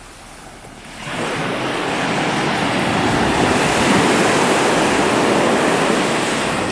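Ocean wave breaking and washing up the shore: the surf swells in suddenly about a second in, is loudest around the middle, and dies away near the end.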